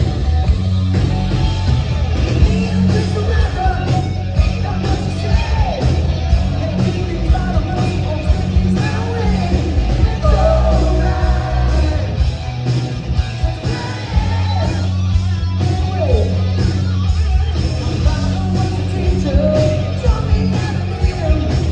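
Live hard rock band playing a song with a male lead singer over electric guitars, bass and drums, with a steady driving beat.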